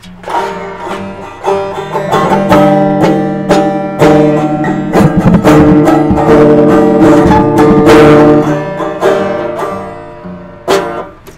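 Instrumental music from the song, plucked string instruments playing without vocals, getting quieter near the end.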